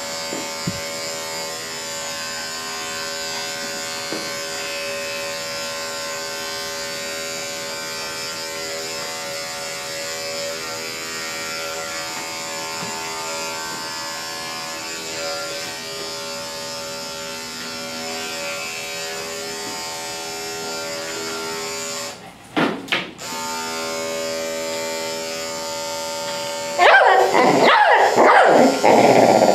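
Electric dog-grooming clippers with a 10 blade running steadily as they shave a matted coat, cutting out briefly about two-thirds through and starting again. Near the end the dog barks loudly over the clipper hum.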